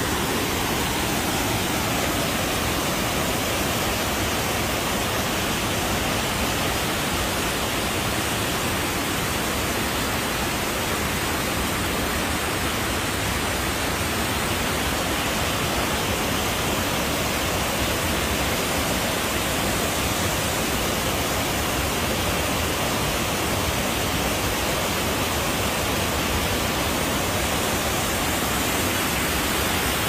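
Waterfall pouring down a stepped rock face into a pool: a loud, steady rush of falling water.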